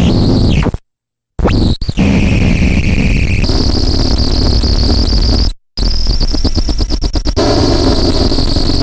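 Circuit-bent LeapFrog Phonics Pond toy glitching through a sound-mangling effects box: harsh, distorted electronic noise with held high whining tones. A rapid stutter comes about two-thirds of the way in, and the sound cuts off abruptly to silence twice.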